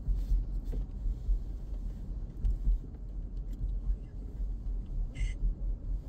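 Low rumble of a car driving along a road, the tyre and engine noise heard from inside the car, with a brief hiss about five seconds in.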